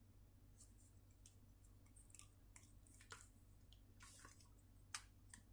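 Faint scattered clicks and short scrapes from a tripod's phone holder being handled and fitted into place, with a longer rustle about four seconds in and a sharper click near the end, over a faint low hum.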